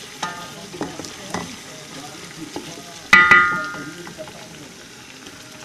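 Chicken frying and sizzling in an aluminium pot while a spatula stirs it, knocking lightly against the pot a few times. About three seconds in, the spatula strikes the pot hard twice, and the pot rings out before fading.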